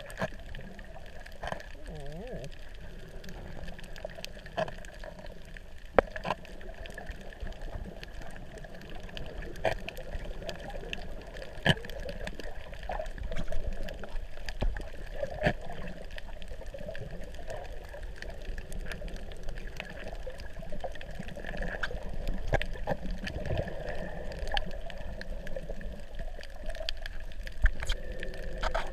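Underwater ambience heard through a submerged camera: a steady muffled watery wash with scattered sharp clicks and pops.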